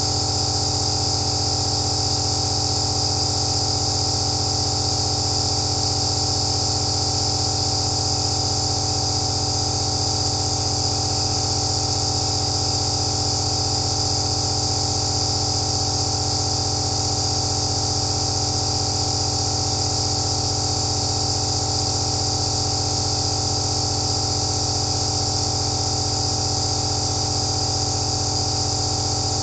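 Electric nebulizer (aerosol machine) running continuously: a steady, unchanging hum with a high-pitched whine and a hiss of air over it.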